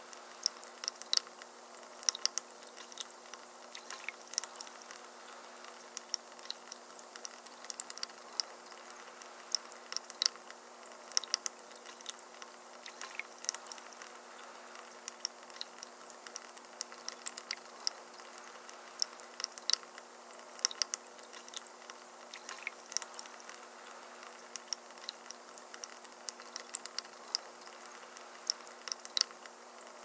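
Water trickling and splashing down the steps of a resin rock-face tabletop fountain, with many irregular small drips and plinks over a steady wash and a faint steady hum underneath.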